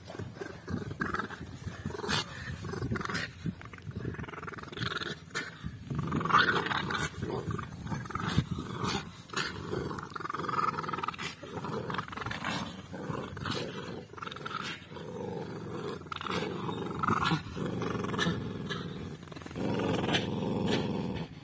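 Dogs growling in play while tugging on a rope toy: a continuous rumbling growl that rises and falls, with scattered small clicks.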